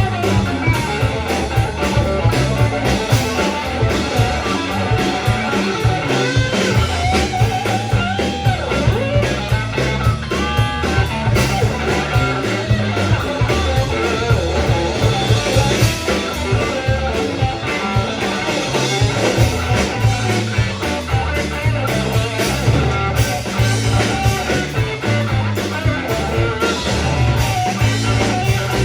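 Rock music led by guitar, with bass and drum kit keeping a steady beat.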